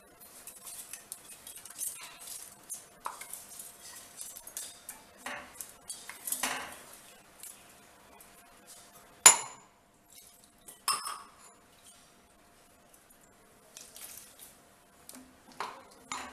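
A spatula and spoon scraping, clinking and tapping against a nonstick kadai and a small steel container as coarsely ground rice is tipped into milk and stirred. Two sharp clinks stand out, about nine and eleven seconds in.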